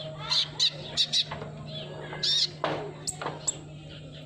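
Sunbird calling: a series of short, sharp high-pitched chirps at irregular intervals, over a steady low hum.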